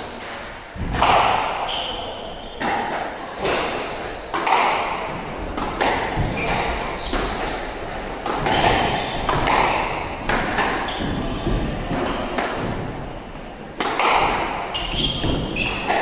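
Squash rally: the ball smacking off rackets and the court walls about once a second, with short sneaker squeaks on the wooden floor between shots.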